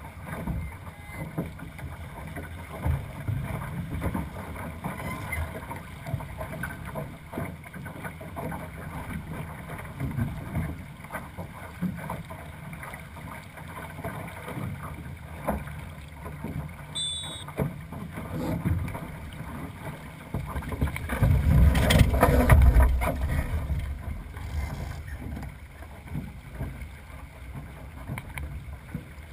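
Small sailing dinghy under way: water rushing along the hull and wind buffeting the microphone, with scattered small knocks of the boat and rigging. A louder rush of wind and water comes for a couple of seconds nearly three-quarters of the way through.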